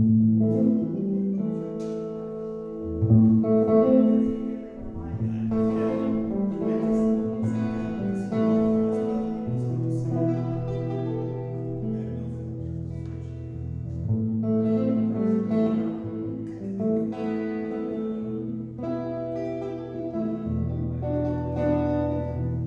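Solo electric guitar played through an amplifier: picked notes ringing over held bass notes that change every second or two, with no singing.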